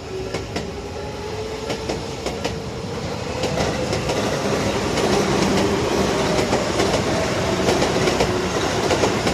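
Electric commuter train drawing near and passing, growing steadily louder. Its wheels click over the rail joints, and a whine rises slowly in pitch.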